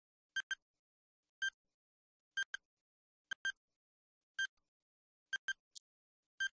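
Countdown timer sound effect: a short, ringing electronic tick, mostly doubled, about once a second.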